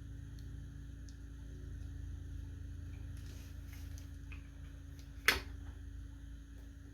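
Small plastic figure pieces handled by hand, with one sharp click near the end as a part snaps on.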